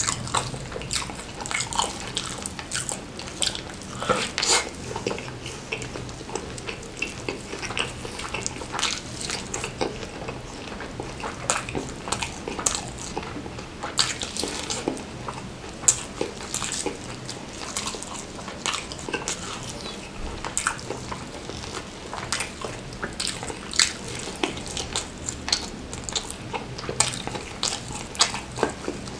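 A person eating whole fried chicken drenched in chilli sambal up close: tearing the meat by hand, biting and wet chewing, full of small irregular crackles and clicks.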